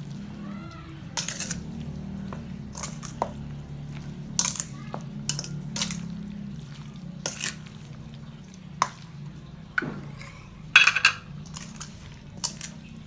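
Plastic spatula scraping and knocking against a stainless steel mixing bowl as mayonnaise-dressed chopped vegetables and eggs are stirred, in irregular strokes about a second apart. A steady low hum runs underneath.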